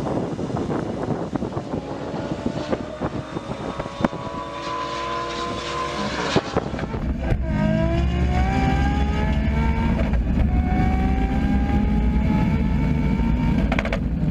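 Toyota Supra MK4's straight-six engine under full acceleration. For the first few seconds it is heard from the roadside racing an Audi R8, with wind on the microphone. It is then heard from inside the cabin, its pitch climbing steadily and dropping sharply at upshifts about seven and ten seconds in.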